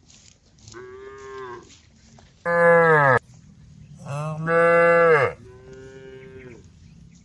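Cattle mooing: four long calls, a fainter one, two loud ones that drop in pitch as they end, then another fainter one.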